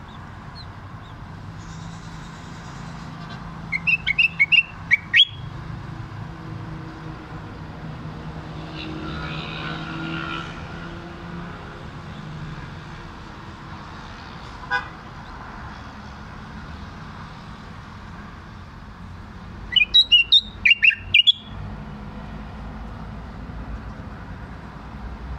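Caged common bulbul singing two short bursts of loud, quick whistled notes, one about four seconds in and another about twenty seconds in, over a steady low hum of street traffic.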